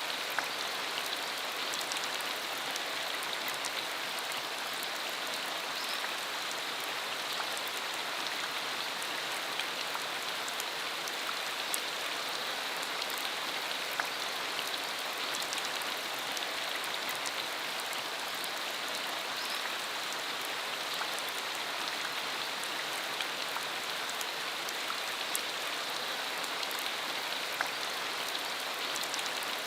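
Steady rain shower falling, an even hiss sprinkled with frequent sharp ticks of single drops.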